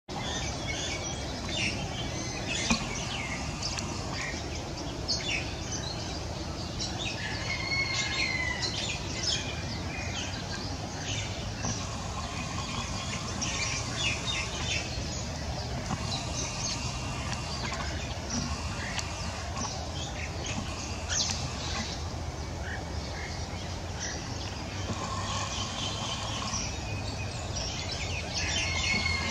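Birds chirping in many short high calls over a steady low background rumble, with a brief click about three seconds in.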